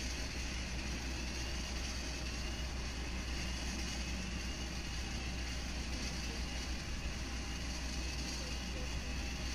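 Steady airport apron noise: a continuous low rumble of vehicles and aircraft machinery with a faint high whine running through it.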